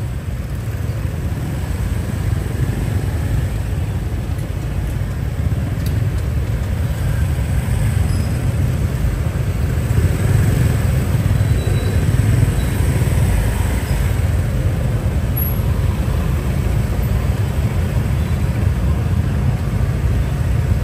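Steady city road traffic noise, mostly a continuous low rumble.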